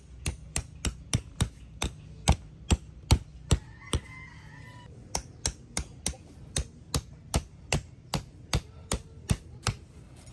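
A hand-held hammer striking hooked metal tent stakes to drive them into grassy ground. There are two runs of sharp, even blows at about three a second, with a short pause about four seconds in.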